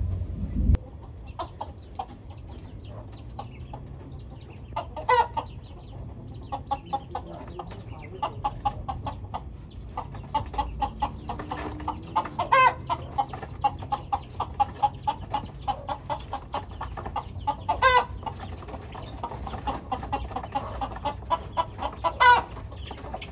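A flock of chickens clucking steadily, with four louder short squawks spread through. A low rumble stops within the first second.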